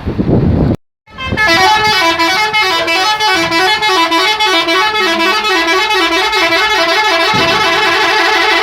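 A bus's telolet musical horn playing a fast, repeating multi-note tune that steps up and down, starting suddenly about a second in after a brief gap.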